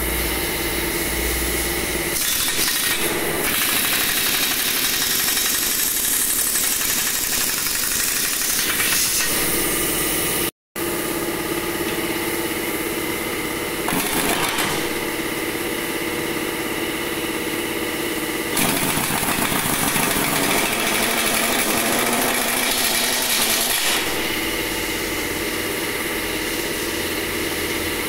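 Pneumatic impact wrench hammering on the bolts of an excavator's steel track shoes, running steadily and loudly.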